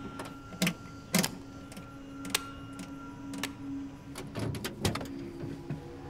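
A vintage car being handled: a series of sharp, irregular mechanical clicks and knocks, the loudest about half a second and a second in and a cluster near the end, over a steady low hum.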